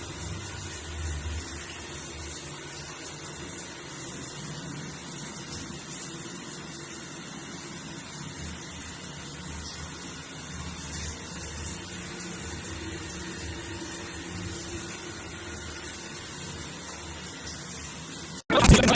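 Water running steadily from a shower fed by an electric instant water heater, a continuous hiss with a low hum beneath it. Near the end it cuts off abruptly and a brief loud burst follows.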